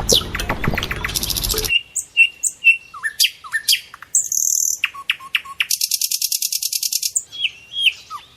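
Birds chirping and singing: short downward-sweeping whistles and chips, with a fast buzzy trill about a second in and a longer one around six seconds in. A low background rumble under the calls cuts off suddenly before two seconds in.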